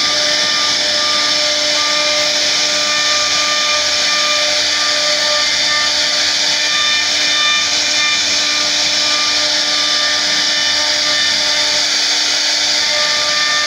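CNC router spindle running at speed while its bit carves a relief pattern into a wooden door panel. A steady whine, with tones that come and go as the bit moves, sits over the hiss of the cut.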